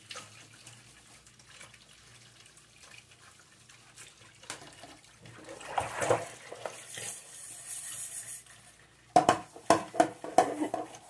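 Kitchen tap running a thin stream into a stainless steel sink while dishes are scrubbed with a soapy sponge. Near the end comes a quick run of sharp, loud scrubbing strokes, several a second.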